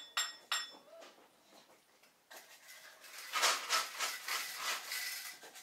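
Metallic taps with a short ringing tone, about three a second, stop within the first second. About two seconds in, a dense rattling and scraping clatter of hand-held objects being shaken and rubbed starts and keeps going.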